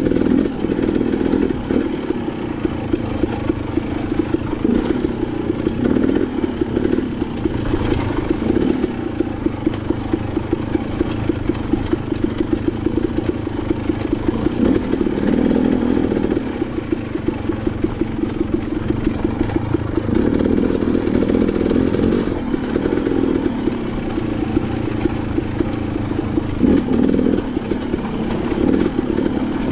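Motorcycle engine running on a rough trail ride, its throttle swelling and easing every few seconds.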